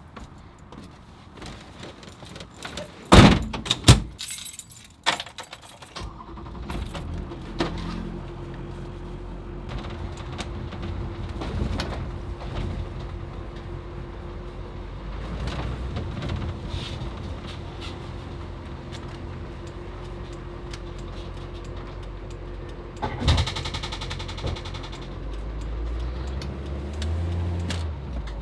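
Two sharp knocks a few seconds in, then the Chevy Kodiak C4500 ambulance truck's engine running with a steady drone and road noise, heard from inside the cab as it drives.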